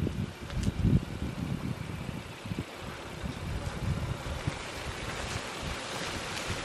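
Honda Ridgeline pickup's V6 engine and tyres rolling slowly over mud and dead leaves as the truck approaches, growing louder toward the end. Wind buffets the microphone in the first second or so.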